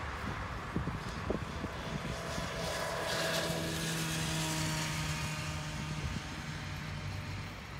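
Bicycle riding noise on an asphalt path with wind on the microphone and a few light knocks about a second in, under a passing motor hum with several steady tones that swells about three seconds in and fades near the end.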